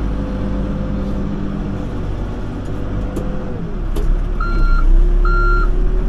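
Compact excavator's diesel engine running under hydraulic load, its note dipping briefly and then climbing again about three and a half seconds in. Near the end a backup alarm starts, beeping steadily about once every 0.8 seconds, twice before the end.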